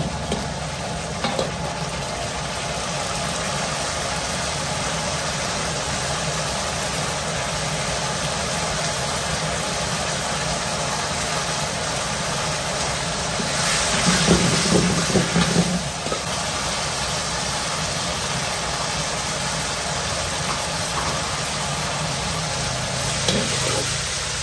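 Food sizzling and frying in a hot pan over a steady low rumble, with a louder spell of sizzling and stirring about two-thirds of the way through.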